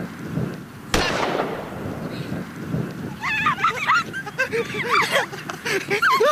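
A single sharp bang about a second in, with a short ring after it, marking the start of a race. From about three seconds in, excited high-pitched voices shout and squeal.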